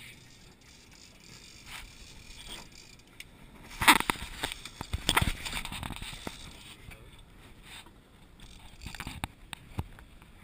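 Knocks and scraping from gear being handled on a small fishing boat: a burst of sharp knocks and clatter about four seconds in, lasting a couple of seconds, then a few fainter knocks near the end.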